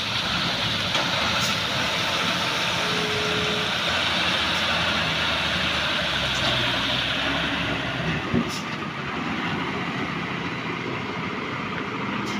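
Heavy Mitsubishi diesel truck engine running slowly at low revs as the truck creeps round a tight bend, over steady traffic noise from the wet road. A brief tone sounds about three seconds in, and a sharp click about eight seconds in.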